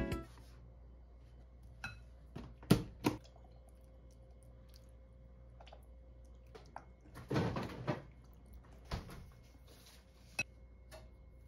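Quiet kitchen sounds of seasonings being added to a glass mixing bowl for a marinade: scattered clicks and taps of bottles, containers and utensils, and a short pour about seven seconds in.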